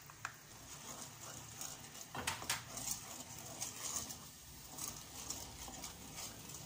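Spatula stirring a thin liquid mixture in a metal pot, scraping and knocking against the bottom and sides to break up lumps of flour, with irregular scrapes and a few louder knocks about two seconds in.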